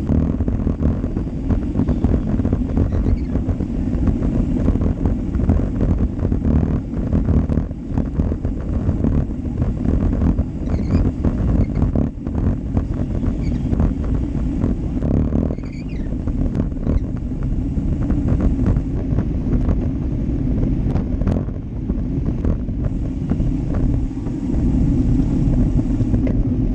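Wind buffeting and road rumble on the microphone of a bike-mounted GoPro Hero Session rolling at race speed, with frequent small knocks and rattles from the bike over the road surface.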